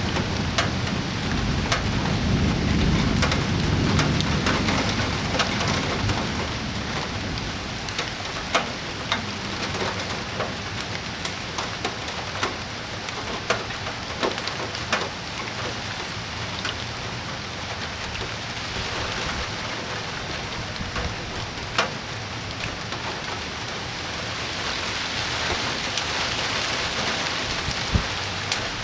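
Summer thunderstorm: rain falling steadily, with thunder rumbling and dying away over the first few seconds. Scattered sharp drips tick close by, and the rain grows a little heavier near the end.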